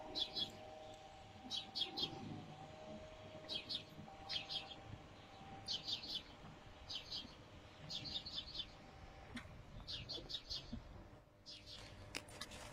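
Small birds chirping faintly: short bursts of three or four quick high notes, repeating about every second or so. A faint steady hum sits underneath.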